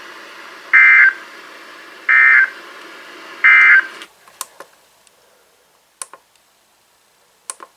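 Emergency Alert System end-of-message data bursts: three short, identical digital screeches about a second and a half apart over receiver hiss, marking the end of the alert. The hiss cuts off about four seconds in, and a few sharp clicks follow.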